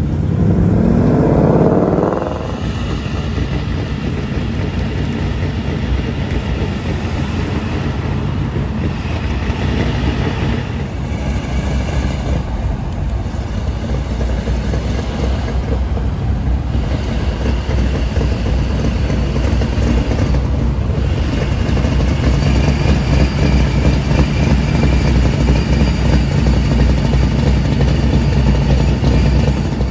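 Ford Mustang Mach 1's 5.0 V8 revving hard as it accelerates past, its pitch rising over the first two seconds. Then a steady low exhaust rumble from a slow-rolling Mustang, growing louder in the last several seconds as it comes close.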